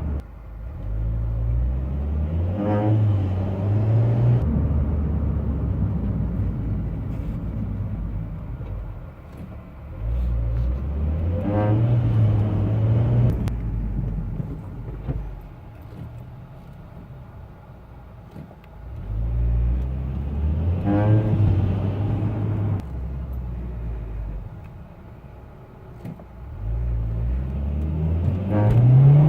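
A car accelerating slowly in first gear four times, each pull carrying a rising whine: the noise of its active centre differential (ACD) pump. It shows up when the car is warm after highway driving.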